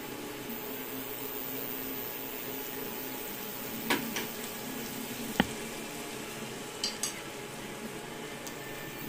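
Shrimp frying in butter and garlic in a nonstick pan: a steady sizzle, with a few sharp clicks about four, five and seven seconds in.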